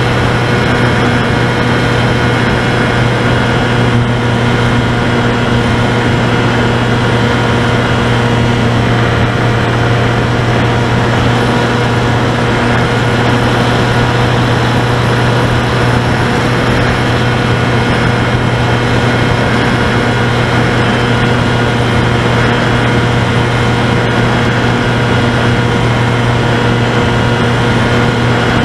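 Finwing Sabre RC airplane's electric motor and propeller running at a steady throttle, heard from a camera mounted on the plane: a constant hum with overtones over steady wind rush.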